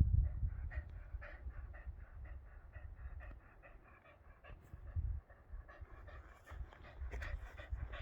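Texas Heeler dog panting rapidly, about four breaths a second, over a low rumble.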